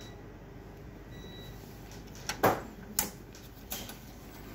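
A few sharp clicks and knocks from hands handling the opened laser printer's metal frame and circuit board, the loudest about two and a half seconds in, with two lighter ones near three and nearly four seconds, over a low steady background noise.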